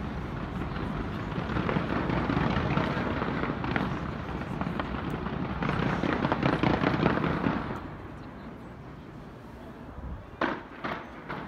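Fireworks display: a dense, continuous barrage of bursts and crackling that dies down about eight seconds in, followed by a few separate bangs near the end.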